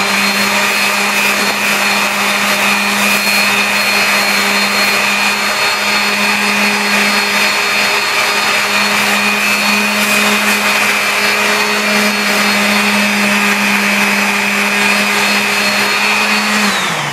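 Random orbital sander running steadily with a constant hum and high whine as it smooths the edges of a metal grille surround, winding down near the end.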